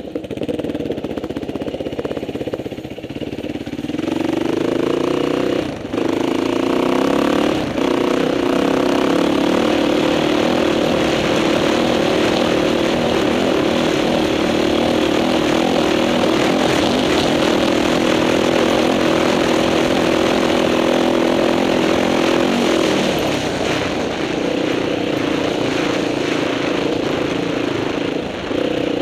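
Motorcycle engine accelerating, its pitch rising, with two brief drops in sound about six and eight seconds in as the rider shifts gears. It then runs at a steady high pitch and eases off a few seconds before the end.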